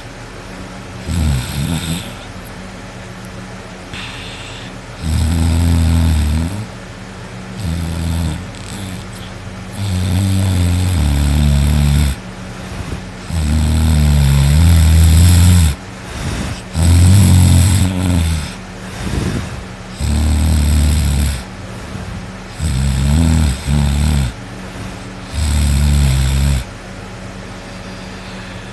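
A person passed out drunk, snoring loudly: a run of low-pitched snores, each one to two and a half seconds long, coming every two to three seconds.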